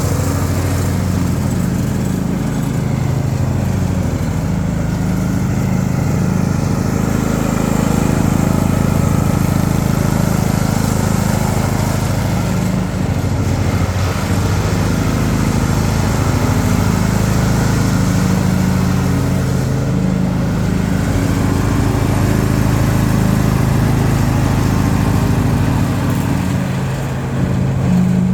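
Riding lawnmower engine running steadily under way, with a brief drop in level near the end.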